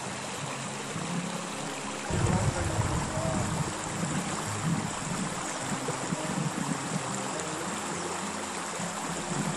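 Shallow river running over stones in a rocky riffle, a steady rushing ripple. From about two seconds in, wind buffets the microphone with low gusty rumbling.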